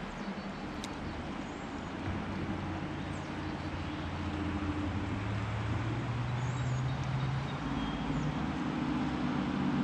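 Vehicle traffic on the road bridge overhead: engines droning low, shifting and rising in pitch and growing slowly louder, over the steady rush of the river, with a few faint bird chirps.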